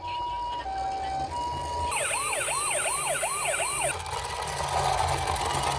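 Emergency-vehicle sirens: a two-tone high-low siren of the Japanese ambulance kind going high, low, high, then about two seconds of a fast rising-and-falling yelp about two and a half sweeps a second, then a steady single tone with a hiss behind it.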